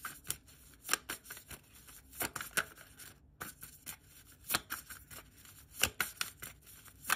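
A deck of tarot cards being shuffled by hand: a series of irregularly spaced sharp snaps and flicks of the cards.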